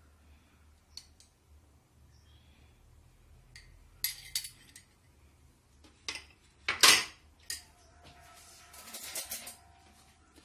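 Metal spoon and bowls clinking and knocking against a ceramic plate and other dishes, in a handful of separate sharp taps with the loudest about seven seconds in. A faint ringing note lingers after a knock between eight and nine and a half seconds.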